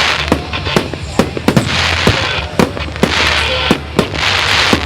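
Public firework display: shells bursting in a rapid, irregular string of sharp bangs, with stretches of dense crackling between them.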